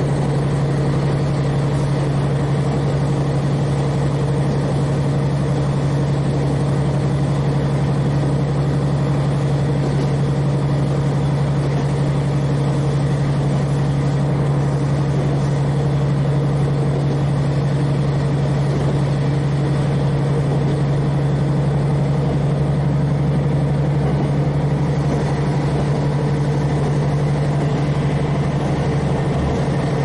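N-DMF13HZI diesel engine of a KiHa 40 railcar, heard from inside the car, running with a steady, unchanging drone while the train travels.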